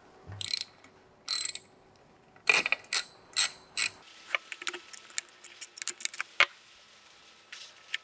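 Hand ratchet with a 10 mm socket clicking as it undoes the top-plate bolts of a solar screw pump. Two short bursts of rapid ratchet clicks come first, then several separate clicks. Lighter scattered ticks follow, with one sharp click about six and a half seconds in.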